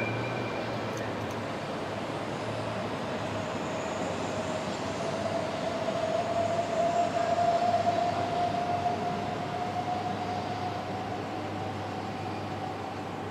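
Train on the tracks: a steady rumble with a faint drawn-out tone that rises slightly in pitch, swells to its loudest about halfway through, then fades.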